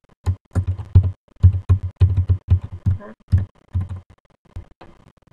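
Computer keyboard typing: a quick, uneven run of keystrokes, each a short thump, thinning out near the end.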